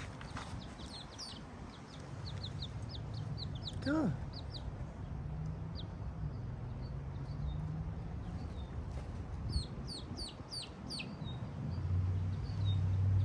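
Miniature chicks peeping: short, high, downward-sliding peeps, scattered at first, then a quicker, louder cluster about ten seconds in. A low hum comes up near the end.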